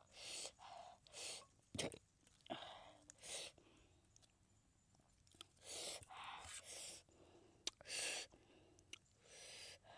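Close-up chewing of crisp lettuce wrapped around grilled pig-head meat: short, crunchy bites and mouth noises every second or so, with a couple of sharp clicks.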